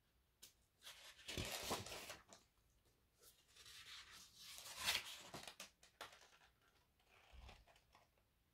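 Faint rustling of paper pages being handled and turned in a book, in two main stretches about a second in and again around four to five seconds in, with a few small clicks between.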